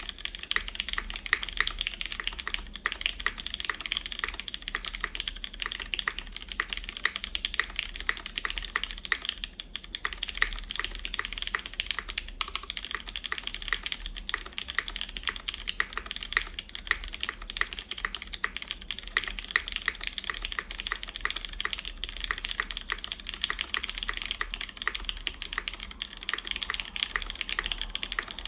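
Continuous typing on a CannonKeys Blaine v2 SE mechanical keyboard in single-side gasket mount, with lubed Cherry MX Brown tactile switches, a full aluminium plate and GMK keycaps: a dense stream of key clicks with a brief pause about nine and a half seconds in.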